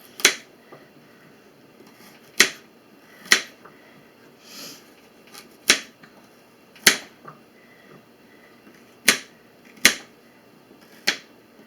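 Kitchen knife chopping carrots on a cutting board: eight sharp, single chops at uneven intervals.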